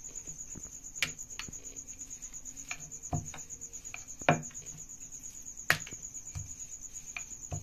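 A wooden rolling pin works naan dough on a marble rolling board, giving scattered knocks and clicks, the sharpest two about four and six seconds in. A cricket trills steadily throughout.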